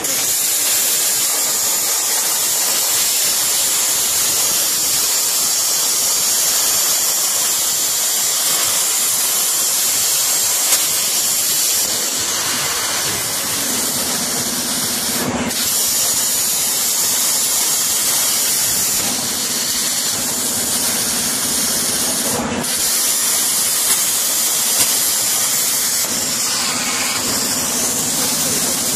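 A 200A CNC plasma cutter cutting 10 mm carbon steel: the plasma arc and its air jet give a loud, steady hiss. The hiss cuts out for an instant twice, about halfway and about three quarters through, as the torch ends one cut and starts the next. A low hum joins about halfway.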